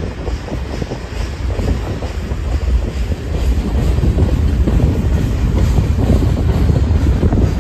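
Covered hopper cars of a freight grain train rolling past close by: a steady low rumble with the clickety-clack of wheels over rail joints, louder in the second half.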